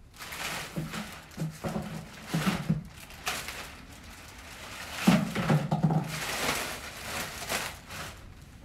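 Clear plastic packaging wrap crinkling and rustling in a cardboard box as a part is unpacked. It comes in two spells of a few seconds each, with a short lull between, and the second spell starts loudest.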